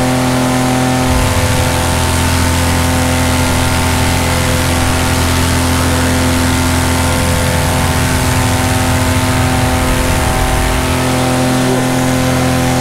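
Paramotor engine and propeller running steadily in flight, holding one pitch throughout. A deeper low rumble joins about a second in and drops away near the end.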